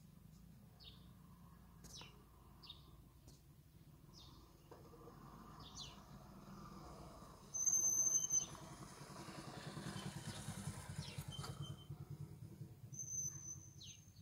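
Small birds chirping in short falling calls, repeated every second or so. About eight seconds in there is a loud, brief high-pitched tone. From about nine seconds a motorcycle engine runs as it comes up the road.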